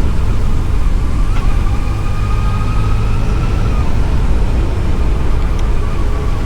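Yamaha FJR1300's inline-four engine running while riding, with a steady low rush of wind noise and a faint whine that sags slightly in pitch near the end.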